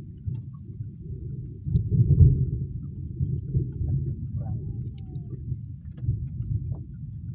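Wind buffeting the microphone, a low gusting rumble that swells about two seconds in, with a few faint ticks over it.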